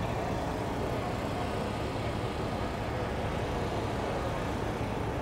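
Steady low rumble and hiss of outdoor background noise, with no distinct event standing out.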